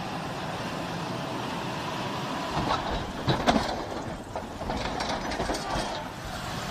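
Tank tipping off a railway flatcar: metal clanks and knocks from its tracks and hull against the flatcar, with a few sharp bangs about three seconds in, over a steady noise.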